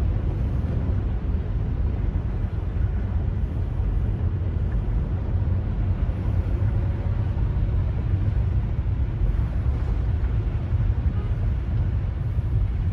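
Steady low rumble of a car driving through a flooded street, heard from inside the cabin: engine and tyres running through shallow floodwater.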